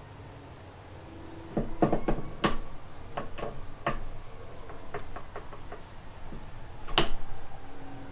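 Metal parts of a manual transmission clinking and knocking as the gear set is taken apart by hand: a run of sharp clinks, some ringing briefly, with the loudest strike about seven seconds in.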